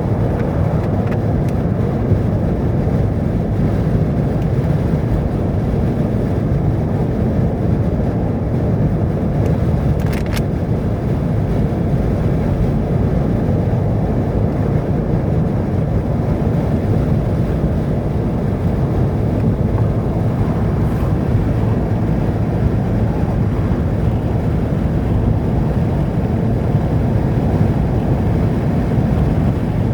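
Steady low rumble of a car on the move, engine and road noise together, with a brief click about ten seconds in.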